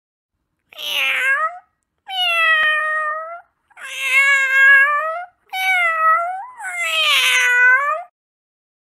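Domestic cat meowing: five drawn-out meows in a row, each about a second long.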